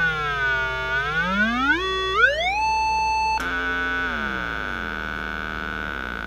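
Audio-generator test tone played through the Zenith 4-B-231's field-coil speaker via its repaired output transformer, being swept in pitch. It glides down, rises steeply, then jumps about three and a half seconds in to a lower tone that slides down further. The speaker reproducing it shows that the repaired transformer primary passes signal.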